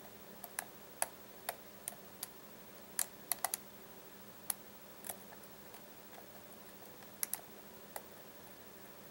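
Lock pick working the pins of a brass Baldwin pin-tumbler lock cylinder under a tension wrench: irregular sharp clicks of pins and pick, about fifteen, with a quick cluster around three seconds in.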